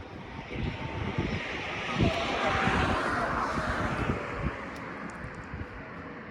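An aircraft passing overhead: a rushing engine noise that swells and fades over about four seconds, its tone falling slowly as it passes. A single thump about two seconds in.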